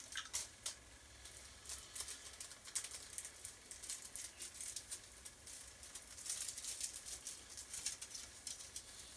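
Plastic packaging and small bagged spare parts rustling and clicking as they are handled, in irregular bursts of crinkles and light clicks.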